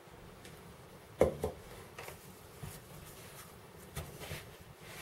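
A wooden spoon stirring caster sugar into crumbly rubbed-in flour and butter in a plastic mixing bowl: scattered soft knocks and scrapes, the sharpest about a second in.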